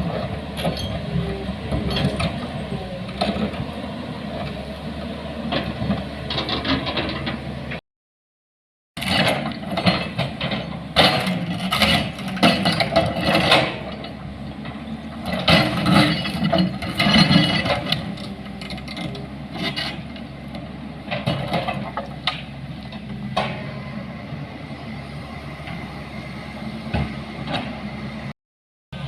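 Vehicle engine running with loud mechanical rattling and clanking. The sound cuts out completely for about a second, around eight seconds in and again near the end.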